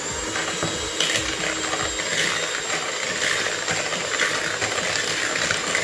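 Electric hand mixer running steadily at full speed, its beaters whisking eggs and sugar in a plastic bowl, with a high steady whine over the motor noise.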